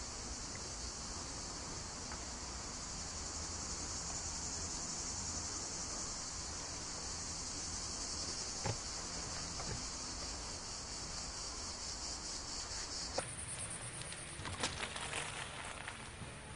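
Steady, high-pitched buzzing of an insect chorus that cuts off abruptly about 13 seconds in, after which only scattered faint clicks and crackles remain.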